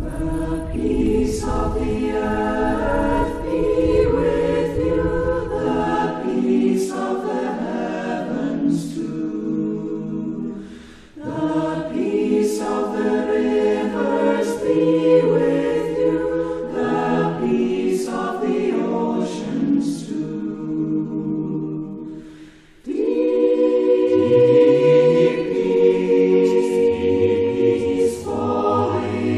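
A group of voices singing together in a choir, a traditional Guatemalan song of peace, in long phrases with brief breaks about eleven and twenty-three seconds in.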